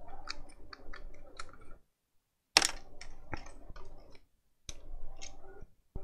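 Small precision screwdriver clicking and scraping against the plastic earcup of a pair of headphones as it is worked into the housing to open it: a run of light clicks, with one louder click about two and a half seconds in.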